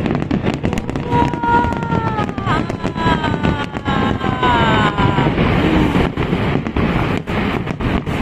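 Aerial firework shells bursting in a rapid barrage of sharp bangs and crackles. A drawn-out tone slowly falls in pitch from about one to five seconds in.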